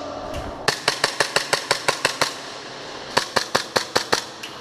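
Airsoft gun firing in two rapid bursts of sharp cracks, about eight shots a second: a longer string of about a dozen shots, a short pause, then about six more.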